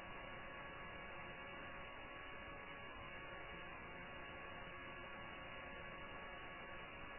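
Steady electrical hum and hiss with a few faint constant tones, unchanging throughout; no ball strikes are heard.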